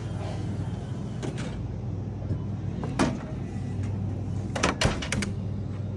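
A steady low hum with several sharp clicks and knocks over it, the loudest about three seconds in and a quick cluster of them near the end.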